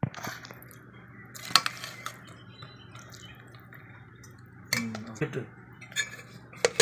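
Metal spoon scraping and clinking against a stainless steel pot and a plastic plate as curd rice is spooned out and served, a series of sharp clinks and knocks.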